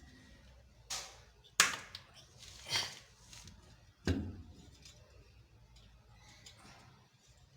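Knocks and clanks from a car wheel and tyre tools being handled while a wheel is refitted: a sharp knock about a second and a half in, the loudest, and a heavier knock with a low thud about four seconds in.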